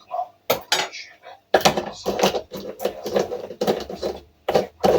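Spoon and crockery clinking: cutlery knocking against cups or dishes in quick repeated strikes, about four a second, while coffee is being made.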